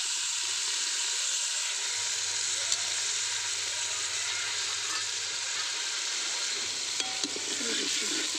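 Chopped onions, tomatoes and green chillies sizzling in hot desi ghee in an aluminium pot, a steady loud hiss. A few clinks of a steel ladle stirring them near the end.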